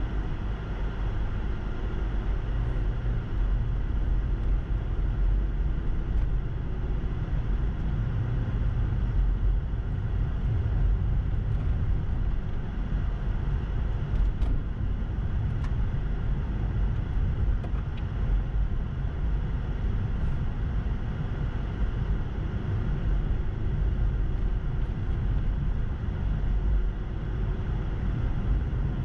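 Car driving on a snow-packed street, heard from inside the cabin: a steady low engine and road rumble, the engine note rising as the car pulls away and gathers speed in the first few seconds.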